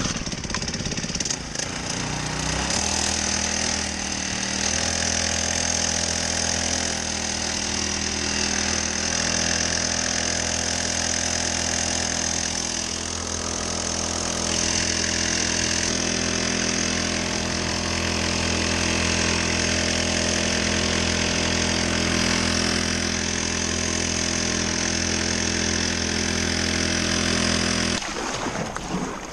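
Honda GX35 four-stroke kayak outboard engine starting and catching about two and a half seconds in, then running steadily under way. It stops near the end.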